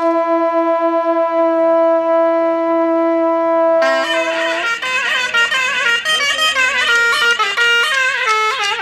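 Karnays, long Uzbek brass trumpets, sounding one long held note. A little under four seconds in, a surnay shawm takes over with a fast, ornamented melody.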